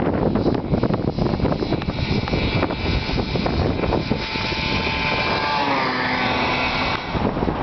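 1978 Ski-Doo Blizzard 6500 Plus snowmobile's two-stroke engine running at speed during a pass-by. Its drone builds about halfway through, drops in pitch about six seconds in as it goes past, and fades near the end, over wind noise on the microphone.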